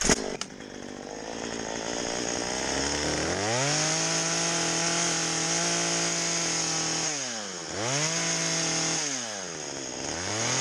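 A sharp knock, then a Stihl two-stroke chainsaw with a carving bar runs rough and low before revving up to full throttle about three and a half seconds in and holding a steady high note as it cuts into the log. Twice the revs drop and climb straight back up as the throttle is let off and squeezed again.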